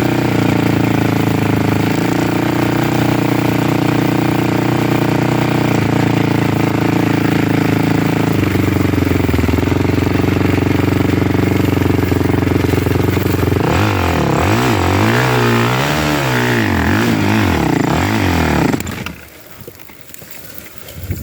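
A motor vehicle's engine running steadily, its pitch stepping a little lower about eight seconds in. It then revs rapidly up and down for several seconds before stopping abruptly near the end.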